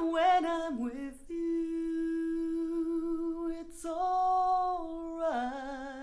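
A woman's voice singing long, wordless held notes that slide from one pitch to the next, with vibrato on the last note. It is a recording played back through Harbeth SHL5+ loudspeakers in a room.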